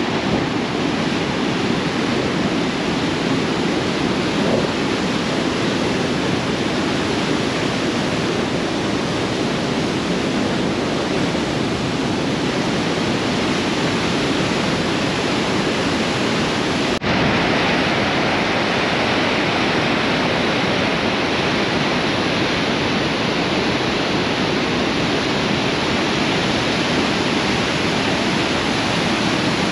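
Merced River whitewater rushing over granite and pouring over the brink of Nevada Fall: a steady, loud rush of water. It briefly breaks a little past halfway and comes back brighter and hissier.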